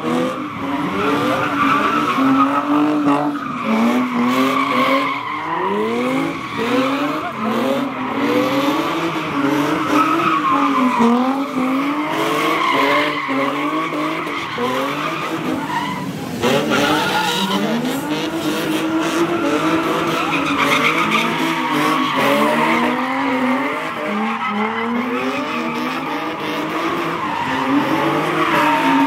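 Car engines held at high revs, their pitch rising and falling over and over, with tires screeching steadily as cars spin donuts.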